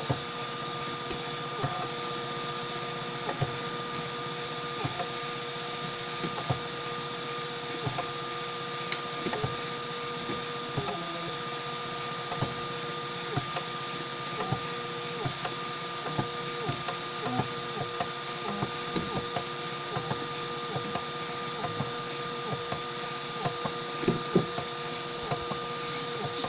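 Homemade 3D printer running a print: its stepper motors hum in steady tones, with a short click every second or two where the motion changes.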